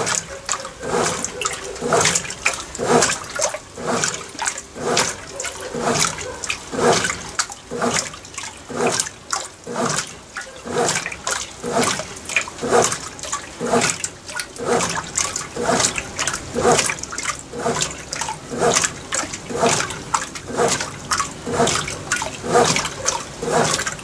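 Consul CWB09AB 9 kg top-load washing machine agitating an empty tub: water sloshing and splashing in a steady rhythm with each back-and-forth stroke of the agitator. This is the slow, gentle agitation of the duvet (Edredom) program.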